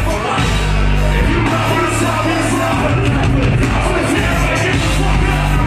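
Loud live rap music from a club concert's PA: a heavy bass line of long, deep notes with vocals over it.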